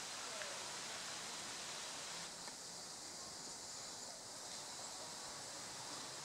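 Steady outdoor background hiss, with faint rustling of tree leaves in a light breeze.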